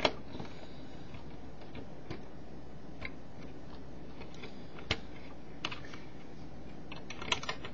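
Plastic Mega Bloks building pieces clicking as they are fitted and pressed onto a model: scattered sharp clicks, with a few in quick succession near the end, over a faint steady hiss.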